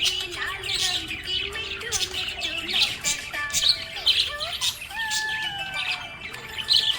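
Pet budgerigars chirping and chattering, a busy run of quick high chirps, short squawks and gliding whistled notes.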